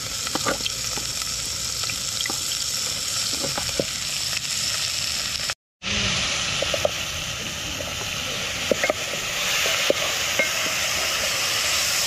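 Chopped onions and garlic sizzling in hot oil in an aluminium pot over a wood fire, stirred with a wooden spatula that knocks and scrapes against the pot now and then. The sizzling cuts out completely for a moment a little before the middle.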